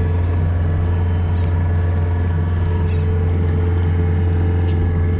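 Yamaha 90 hp four-stroke outboard running steadily under load while towing a shrimp trawl net: a constant low drone that holds one pitch.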